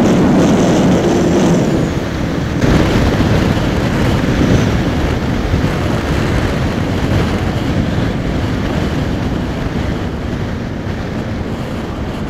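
Yamaha R15 V4's single-cylinder engine running flat out in top gear at around 140–150 km/h, under heavy wind rush on the microphone. The engine note stands out for the first two seconds, then the wind noise takes over and the sound slowly grows quieter toward the end.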